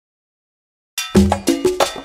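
Silence for about the first second, then upbeat background music starts: a quick, even run of struck percussion, about six hits a second, over bass notes.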